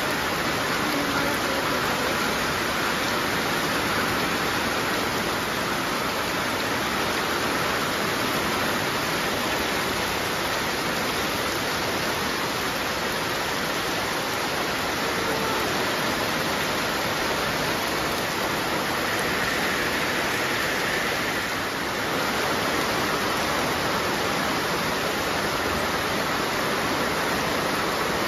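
Heavy rain pouring steadily onto trees, leaves and bare ground: a dense, even hiss that does not let up.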